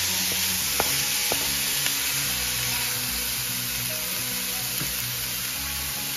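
Chopped chicken and onion sizzling in a hot metal wok. A wooden spoon stirs them, giving a few light taps against the pan in the first two seconds, then the steady sizzle continues on its own.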